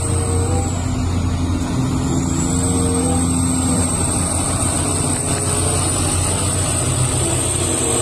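Large rigid mining haul truck running steadily as it drives past on a dirt haul road, a low engine hum with a thin high whine over it that dips in pitch briefly about two seconds in.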